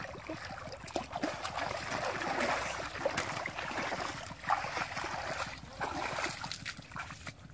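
Feet wading through shallow muddy water, sloshing and splashing, quieter near the end.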